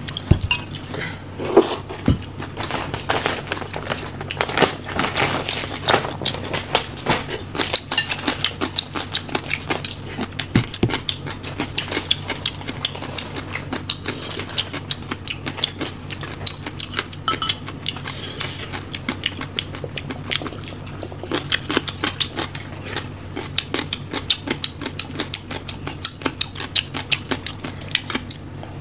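Eating sounds: loud open-mouthed chewing and lip smacking, with chopsticks and spoons clicking against porcelain bowls and plates, over a low steady hum.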